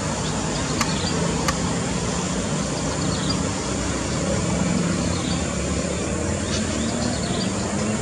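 Steady low rumble of distant road traffic with a faint hum, with two sharp clicks in the first two seconds and faint high chirps now and then.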